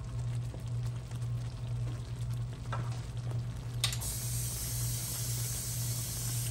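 Skillet of smothered turkey meatballs in onion gravy sizzling and bubbling on the stove, over a steady low hum. About four seconds in, a click is followed by a louder, higher hiss.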